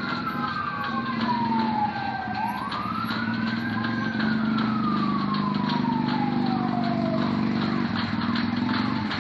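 A wailing siren, its pitch rising quickly and then falling slowly, twice, over the steady low drone of vehicle traffic.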